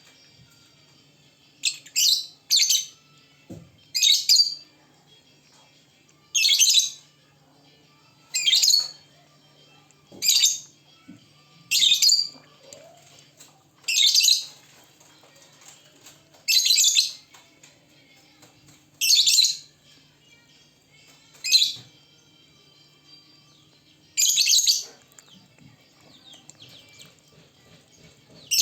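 Lovebirds in full song, giving loud bursts of rapid, high chatter, each lasting up to about a second and repeating roughly every two seconds.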